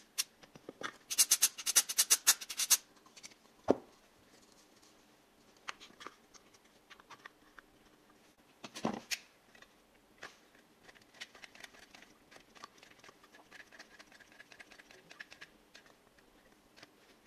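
Rapid run of sharp clicks for the first few seconds, then a few single knocks and light ticks from a hot glue gun and plastic parts being handled on a workbench. Faint background music runs underneath.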